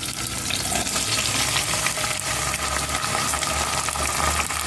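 Onions, garlic and tomatoes frying in oil in a pan: a steady sizzle dotted with fine crackles.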